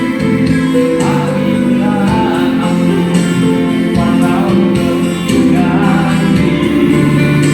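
A song being sung over instrumental accompaniment, the voice holding wavering notes.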